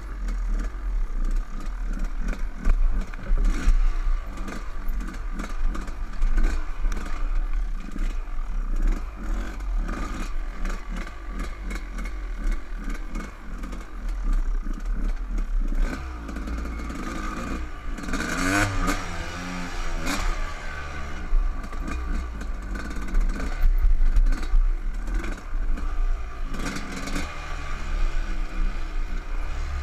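Dirt bike engine running as it is ridden over rough trail, the revs rising and falling, most plainly about eighteen seconds in, with frequent clatter and knocks from the bike over the ground.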